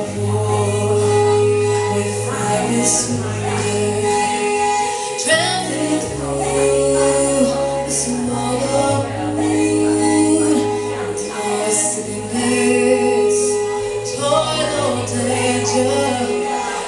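Live band performance: a woman singing over held bass notes and sustained chords, with layered, choir-like vocals.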